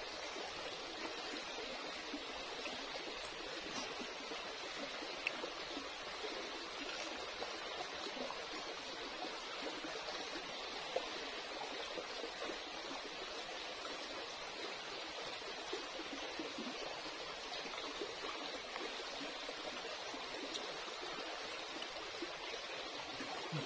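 Shallow stream running over rocks, a steady, even rush of water, with a couple of faint clicks.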